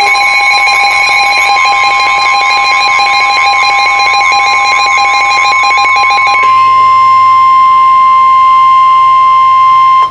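Emergency Alert System attention signal: a loud, steady two-tone alarm. About six and a half seconds in it gives way to a single steady tone, which cuts off abruptly at the end.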